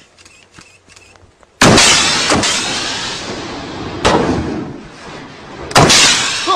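A line of shoulder-fired RPG rocket launchers being fired: four sharp, loud blasts, the first about a second and a half in, each trailing off in a long echoing rumble.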